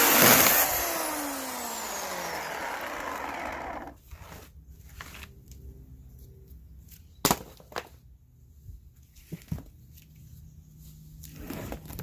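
Oregon CS1500 corded electric chainsaw running at full speed, then released under a second in: the motor and chain wind down with a falling whine over about three seconds and stop. A few sharp knocks and clicks follow.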